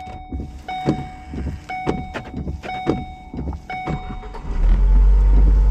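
A car's electronic warning chime repeating about once a second, among light clicks, then a loud steady low rumble starts about four and a half seconds in.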